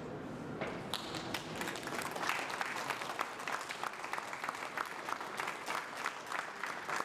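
An audience applauding, the clapping starting about half a second in and keeping up steadily.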